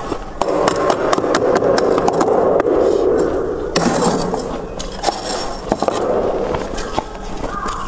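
Metal spoon scraping and digging through thick, soft freezer frost, a continuous crunching scrape with scattered small clicks. The scraping turns brighter and sharper about halfway through.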